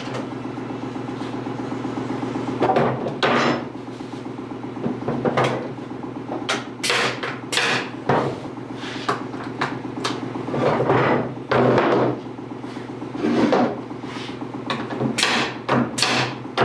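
Pneumatic nail gun firing nails into wood: sharp single shots scattered through the middle and a quick run of about four near the end. Duller knocks come in between, over a steady low hum.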